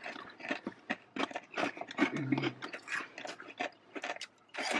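Close-up eating sounds: a string of crunches and clicks from food being bitten and chewed near the microphone, with a brief low hum from the eater a little past two seconds in.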